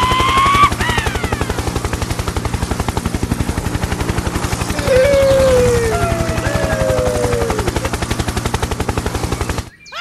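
Helicopter rotor sound effect: a fast, even chopping beat that cuts off suddenly just before the end. Squeaky, high, gliding cartoon-voice sounds rise over it at the start and again about halfway through.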